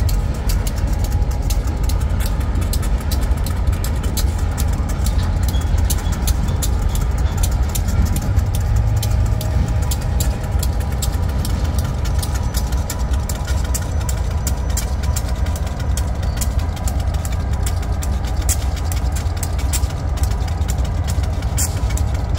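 Diesel-electric freight locomotives running at low speed: a steady, deep engine rumble with many faint sharp clicks over it.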